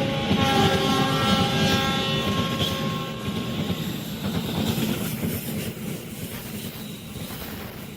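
A train's horn sounds at a lowered pitch after the locomotive has passed and fades out about three seconds in. The rumble of the passing train's wagons then slowly dies away.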